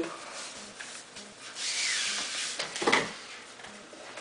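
A rolled speed-stacking mat being pulled off its cardboard tube and unrolled: a rubbing, rustling swish lasting about a second, then a short scrape near three seconds in.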